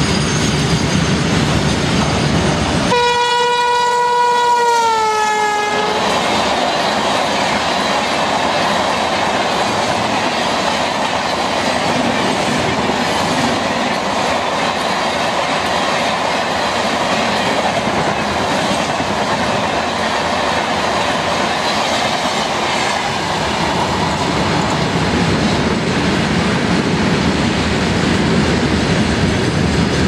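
Indian Railways electric locomotive sounding its horn as it passes at speed: one blast of about three seconds that drops in pitch near its end as the locomotive goes by. It is followed by the steady rumble and clickety-clack of the Rajdhani Express's LHB coaches rushing past.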